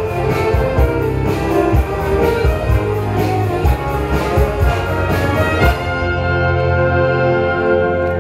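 A wind band playing a rock arrangement live, brass over a drum kit beat. About six seconds in the drums stop and the band holds one long chord, which is cut off near the end.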